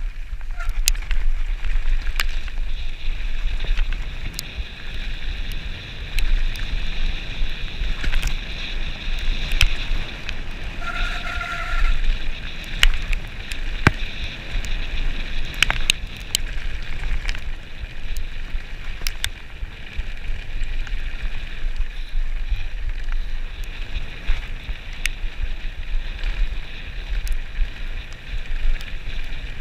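Mountain bike running fast down a gravel track: wind buffets the camera microphone and the tyres crunch over loose stones, with many sharp clicks of stones and the bike rattling. A short squeal comes about eleven seconds in.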